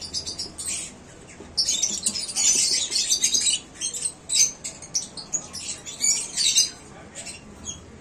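A flock of caged lovebirds chattering: many short, harsh, high-pitched squawks and chirps in clusters, busiest about two seconds in.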